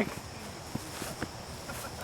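Quiet outdoor background with a few faint taps, twice in the middle.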